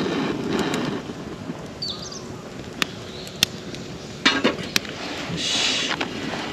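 Hot water poured from a cooking pot into an instant-noodle cup for about the first second. Then sharp clicks and knocks as the pot goes back onto the metal grill over a crackling wood fire, and a rustle near the end as the cup's paper lid is pressed shut.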